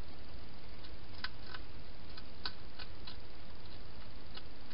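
Wild hedgehog eating dry food at a feeding bowl: irregular sharp crunching clicks, clustered between about one and three seconds in, over a steady hiss.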